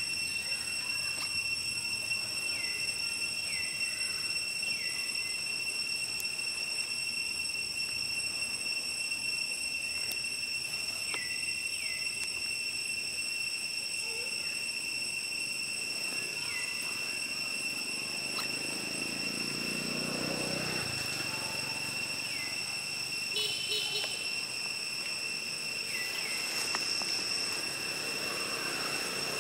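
Steady high-pitched insect chorus, an unbroken shrill drone, with short falling chirps every few seconds and a brief low rumble about two-thirds of the way through.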